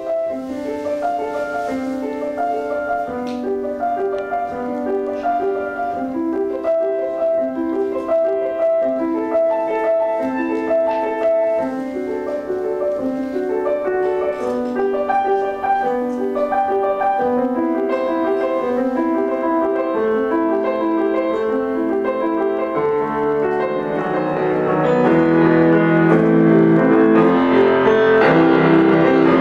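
Grand piano played solo, a steady run of notes. About three-quarters of the way through, the playing turns louder and fuller, with deeper notes added.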